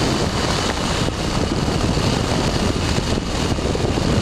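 Ultralight trike's engine and pusher propeller running steadily, with heavy wind rushing over the microphone in the open cockpit.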